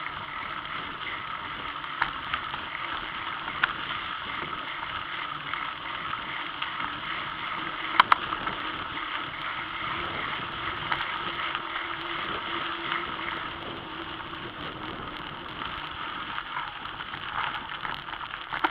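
Bicycle rolling along a gravel dirt track, heard from a camera mounted on the bike: steady tyre and ride noise, with a few sharp clicks and rattles over bumps, the loudest about eight seconds in.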